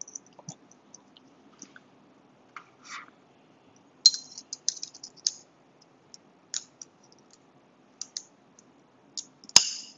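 Small metal pocketknife parts clicking and tapping as a folding knife is put back together by hand: bearing washers, blade and handle side being fitted onto the pivot. The clicks come scattered, with a quick run of them about four seconds in and one sharp, louder click near the end.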